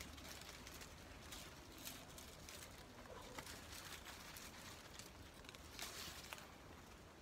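Faint rustling of vine leaves and stems being handled overhead, with scattered light clicks and snaps, a few stronger ones about six seconds in, over quiet outdoor ambience.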